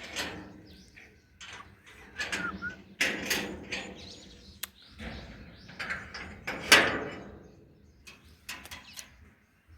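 A gate being opened: a series of rattles and scrapes, the loudest about seven seconds in, with birds chirping.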